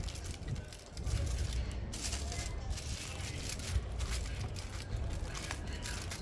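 Aluminium foil crinkling and rustling in short irregular crackles as it is folded and wrapped, over a steady low rumble.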